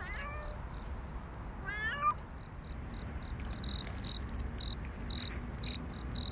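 A street cat meowing twice, two short calls a second and a half apart, the second louder. Under them an insect chirps in an even rhythm, more strongly in the second half.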